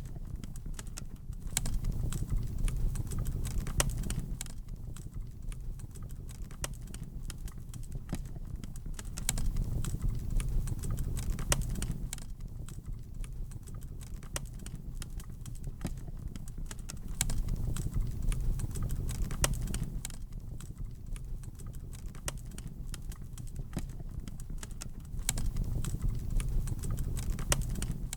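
Wood fire in a fireplace crackling, with many irregular sharp pops and snaps over a low rumble of the flames that swells up and dies down again about every seven or eight seconds.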